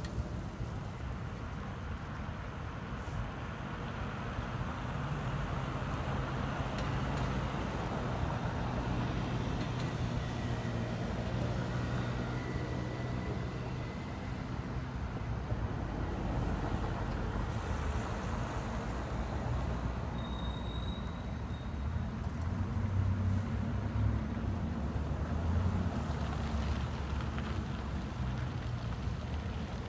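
Road traffic: cars driving through a roundabout, engines and tyres giving a steady hum that grows louder for a few seconds near the end as a car passes close by.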